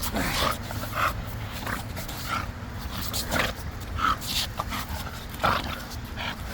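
Bulldog making short, repeated throaty noises, about one every half second to a second, while pulling hard on a tug-of-war rope.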